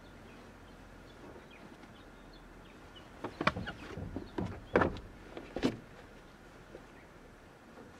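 A few short knocks and thumps, bunched together in the middle, as a person in boots climbs out through a Honda N-VAN's sliding side door, boots and body bumping the van's floor and door step.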